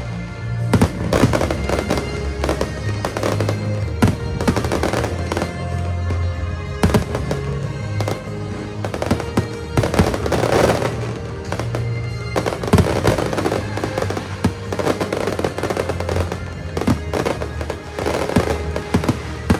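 Aerial fireworks bursting in a rapid, irregular series of sharp bangs and crackles. Music with sustained low notes plays underneath.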